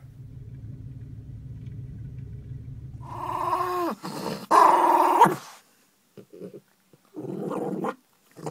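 Yorkshire terrier growling low for about four seconds, then giving two short, high, howling whines, each falling off in pitch at the end.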